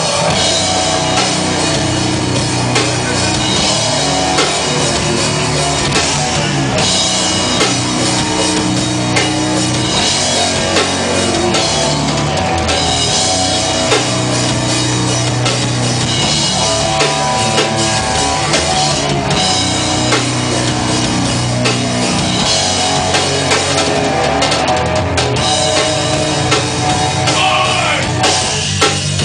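Loud rock music with a full drum kit playing throughout, in a heavy, hard-rock style.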